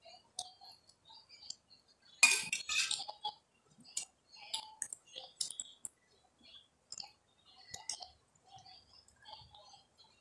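Metal fork and spoon clinking and scraping against enamel plates during a meal, in scattered light clicks, with one louder clatter about two seconds in.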